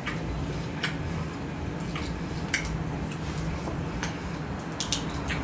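Close-miked eating of seafood: a handful of short, light wet clicks and smacks over a steady low hum.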